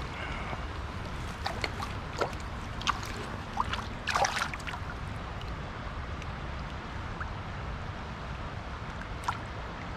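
Water splashing in and around a landing net holding a freshly caught fish in shallow river water: a run of short splashes, the biggest about four seconds in, and one more near the end, over a steady low rush of river flow and wind.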